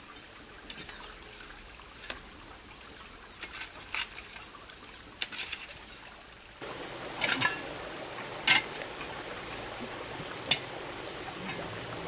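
Hand hoes and a shovel scraping and chopping into dry, loose soil and cut brush, in irregular strikes a second or two apart. A faint steady high whine runs underneath.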